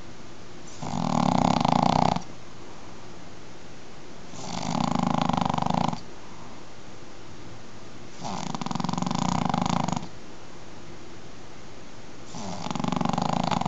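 Snoring in a steady rhythm: four long snores, each lasting a second and a half to two seconds, coming about every four seconds over a faint steady hiss.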